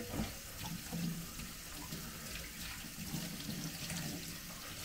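Kitchen tap running steadily into a stainless steel sink as a plate is rinsed under the stream, with a few faint clinks of dishware.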